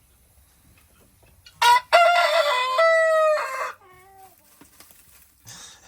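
A rooster crowing once, loud and about two seconds long, followed by a fainter, shorter wavering call.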